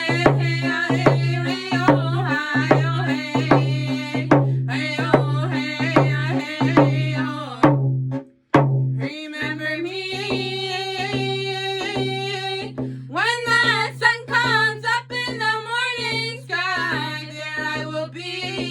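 Round dance song: young voices singing in unison over a drum beaten in a steady pulse, about two beats a second. The sound cuts out briefly about eight seconds in, then the singing and drumming start again.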